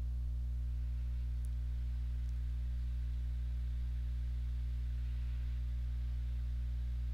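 Steady low electrical hum with a ladder of overtones, like mains hum on the recording, unchanging throughout; no other sound stands out.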